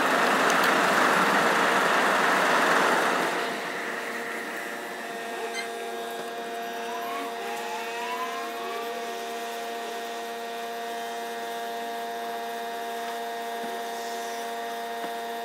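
Air compressor running with a steady multi-tone hum. For the first three and a half seconds a loud hiss of air rushes in as a tire is inflated.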